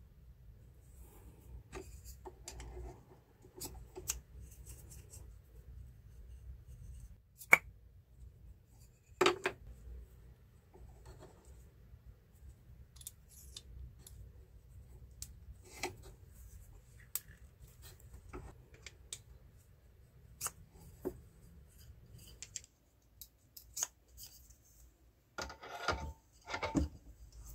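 Handling noises of small steel tooling: scattered sharp clicks and taps as a rod is fitted into a keyless drill chuck, with one especially sharp click about a third of the way in. Near the end comes a short burst of metal-on-metal clatter as the chuck is set into a lathe tailstock.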